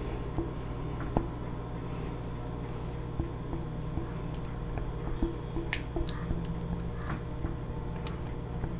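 Spatula scraping thick sauce out of a stainless steel bowl, with soft wet squishes and scattered light clicks against the metal.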